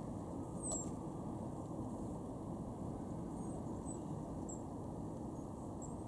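Thin, very high-pitched calls of a goldcrest: a short falling note about a second in, then several fainter short notes, over a steady low background rumble.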